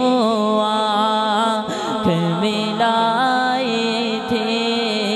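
A male naat reciter singing a long, gliding wordless line through a microphone and sound system, over a steady low drone.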